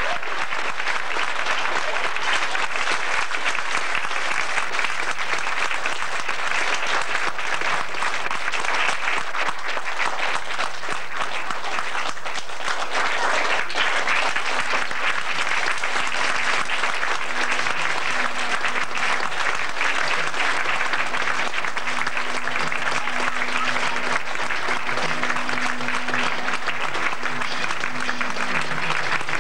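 Audience clapping steadily and continuously, with music playing faintly underneath.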